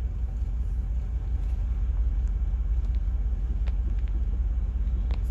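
Steady low rumble of an automatic car's engine and tyres, heard from inside the cabin as it drives slowly along the road, with a few faint ticks near the end.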